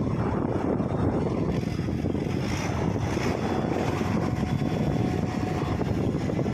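Heavy engine running steadily with a low, rough rumble, with a faint thin whine briefly in the middle.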